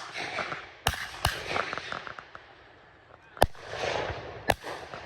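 Four shotgun shots at doves: two close together about a second in, then one at about three and a half seconds and another a second later.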